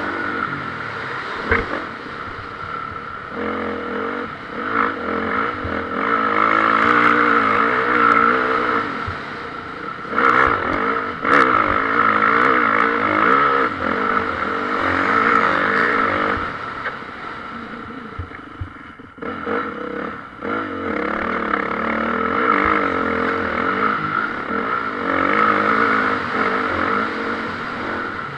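Motocross bike engines revving hard, the pitch rising and falling repeatedly as the riders accelerate and back off, with a short drop in level about two thirds of the way through.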